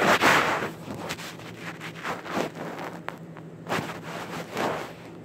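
About half a dozen thumps and scuffs on the phone's microphone, the loudest at the very start, as a pet rat noses and paws at the phone and shuffles over the bedding.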